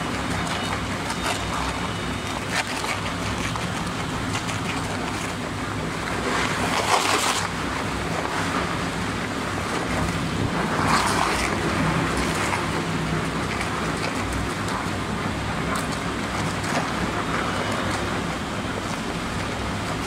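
W-series crusher running, its rotor shredding paper sacks fed into the hopper. A steady motor hum sits under a dense churning noise, with louder surges of shredding about 7 and 11 seconds in.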